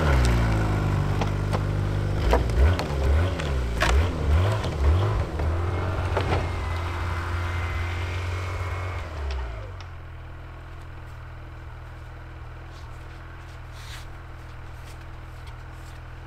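Snowmobile engine revving hard in repeated surges as it hauls itself and a loaded cargo sled up a snowy slope after its ski caught on a stone. About ten seconds in it drops to a steady low idle, with faint footsteps in snow near the end.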